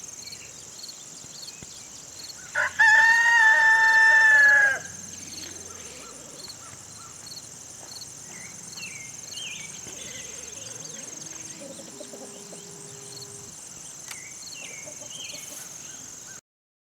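A rooster crows once, a loud call of about two seconds, over a steady high insect drone and a few faint bird chirps.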